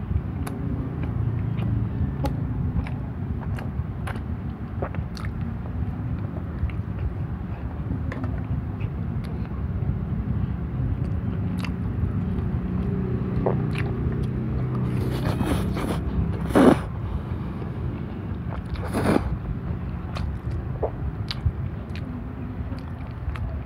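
Close-miked eating: a man chewing a mouthful of pancit canton (instant fried noodles), with many small clicks of a fork and mouth over a steady low rumble. Two short, louder noisy sounds come about two-thirds and four-fifths of the way through.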